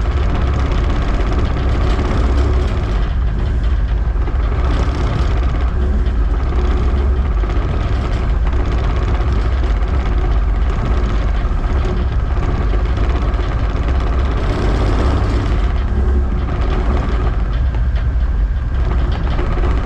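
Tugboat's diesel engines running steadily, heard inside the wheelhouse: a deep, constant drone with a steady hum over it.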